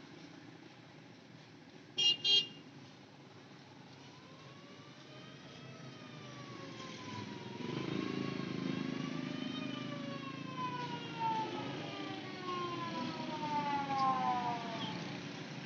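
Road traffic: a short double horn beep about two seconds in, then a wavering tone that rises and falls in pitch and grows louder, like a passing siren, over a steady traffic hum.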